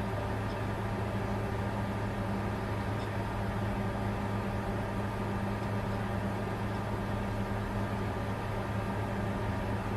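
Cryptocurrency mining computer running under load: a steady whir of cooling fans over a low, even hum.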